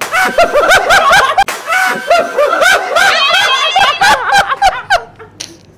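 A group of men laughing loudly in quick repeated bursts, dying away about five seconds in.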